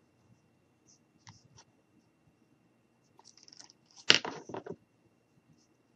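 Hot glue gun being used on a small wooden craft-stick piece: faint clicks and rustles, then a short run of knocks against the table about four seconds in.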